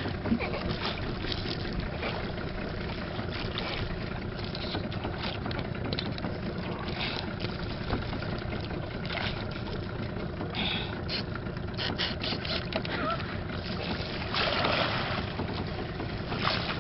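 Steady rush of wind and water around a small outrigger boat, with scattered light clicks and knocks and a short louder rush near the end.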